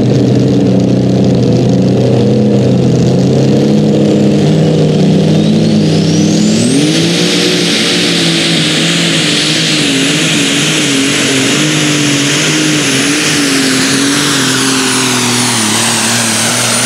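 Heavy super stock pulling tractor's turbocharged diesel engine running flat out under load while pulling the weight-transfer sled. About a third of the way in, a turbocharger whine climbs over a couple of seconds to a high, steady whistle that holds above the engine note.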